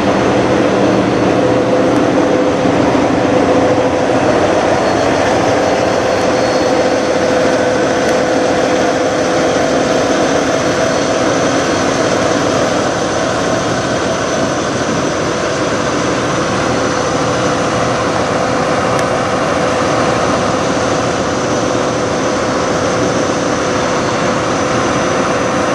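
Semi-truck diesel engines idling: a steady drone with a thin high whine held over it.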